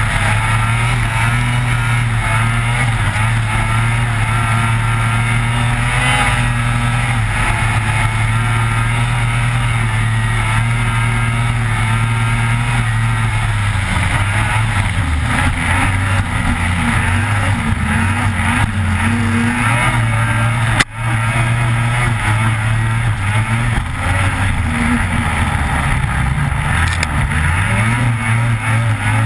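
Lynx Rave RE 600 snowmobile's two-stroke engine running hard on a trail ride, its note dipping and climbing again as the throttle is eased and reopened over the bumps. A single sharp knock with a brief dropout about two-thirds of the way through.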